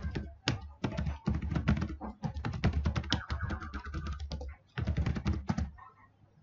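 Fast typing on a computer keyboard: a quick run of keystrokes, a brief pause, then a last burst of keys that ends about a second before the close.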